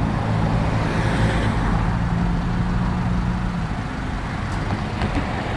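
Road traffic: a vehicle engine's steady low hum over a continuous rush of road noise, the hum fading about four seconds in.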